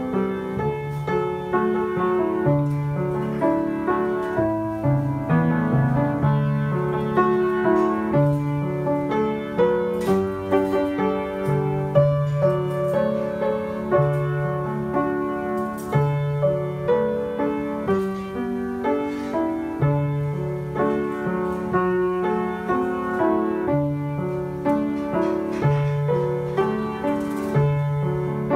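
Solo piano playing a hymn arrangement with both hands: a melody with chords over bass notes struck about once a second, at an even, moderate pace.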